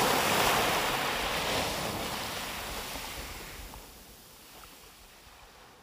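Small Mediterranean Sea waves breaking and washing up the beach, fading gradually until faint by the end.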